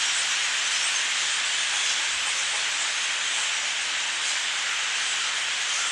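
A huge flock of thousands of blackbirds, their massed calling blending into one steady, rain-like hiss.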